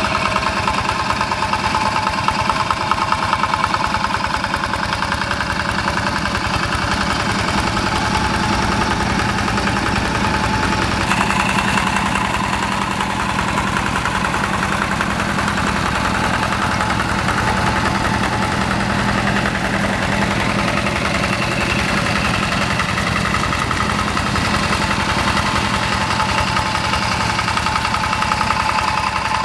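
Single-cylinder diesel engine of a two-wheel hand tractor running steadily as it pulls a tiller through paddy mud. Its tone shifts slightly about eleven seconds in.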